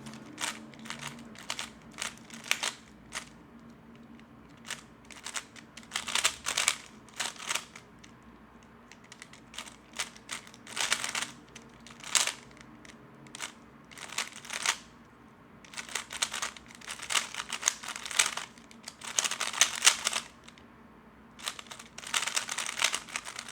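3x3 Rubik's cube being turned fast in a timed speedsolve: runs of quick plastic clicking and rattling as the layers turn, broken by short pauses.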